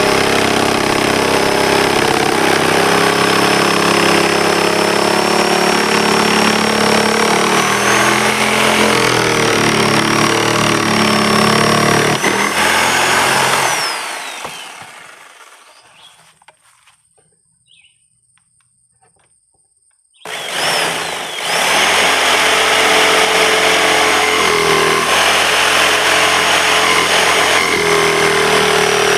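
A power tool's motor running at speed with a high whine. It winds down to a stop about 13 seconds in, then starts up again about 20 seconds in and runs on.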